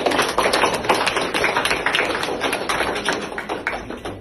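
A group of people clapping, dense and irregular, thinning and dying away near the end.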